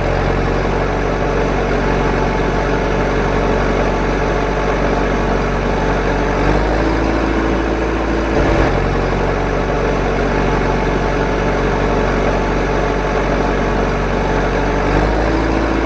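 A steady engine idling sound that repeats on a loop roughly every eight and a half seconds, with a small click about halfway through.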